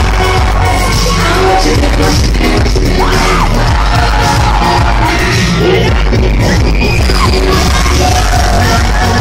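Pop song performed live by a girl group in a concert hall, several voices singing over a backing track with heavy bass. Loud and steady throughout.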